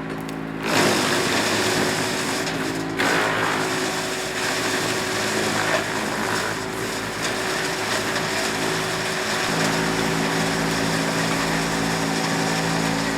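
A motor running steadily with an even hum. About a second in, a loud rushing noise joins it and holds on.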